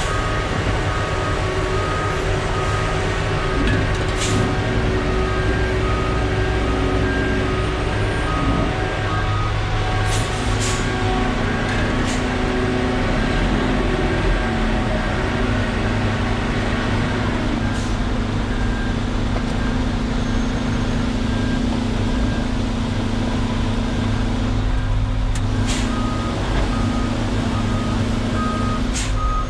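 Concrete mixer truck's diesel engine running steadily with its drum turning; the engine pitch steps up twice about a third and a half of the way in. A repeating beep sounds through the first third and again near the end, with a few short knocks in between.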